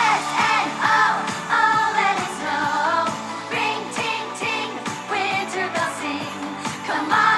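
Pop song with singing over a regular beat.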